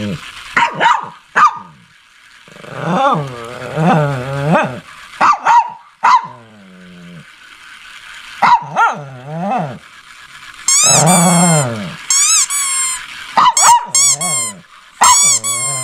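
A Shih Tzu barking and growling in repeated bursts, with longer wavering grumbles between the barks and a run of high-pitched whining yips in the second half.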